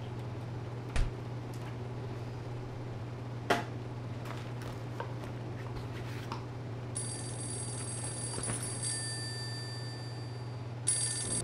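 Mobile phone ringtone starting about seven seconds in, a steady high electronic tone that gets louder near the end as the phone comes out of a jeans pocket. Before it, two sharp knocks over a low steady hum.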